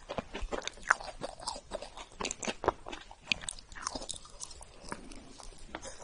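Close-miked chewing of soft chocolate layer cake: a dense, irregular run of short mouth clicks and smacks.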